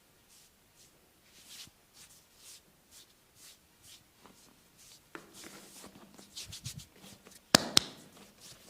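Hands rubbing and stroking bare skin during a deep back massage, soft swishing strokes about once a second, then quicker, denser rubbing. Near the end come two sharp, loud snaps a quarter of a second apart.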